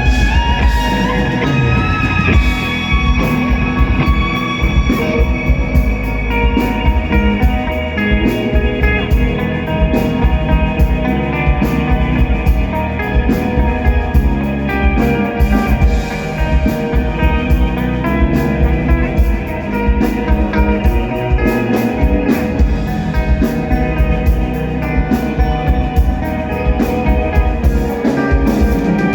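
Metal band playing live: distorted electric guitars carrying a melodic line over bass and a drum kit with dense cymbal and drum strokes.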